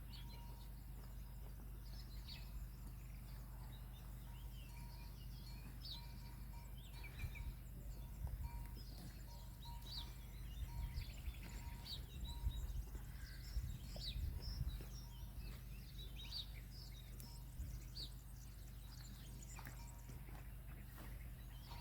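Small birds chirping and calling on and off in the background, with intermittent low rumbles in the middle stretch.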